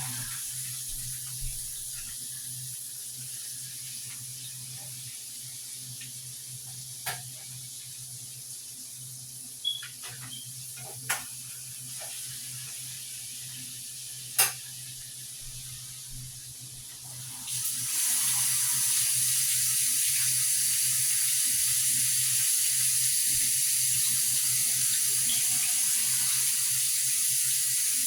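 Battered chicken frying in hot oil in a skillet: a steady sizzle, with a few sharp knocks of the pan and utensils. About two thirds of the way in, the sizzle suddenly gets much louder and stays that way as more pieces go into the oil. A steady low hum runs underneath.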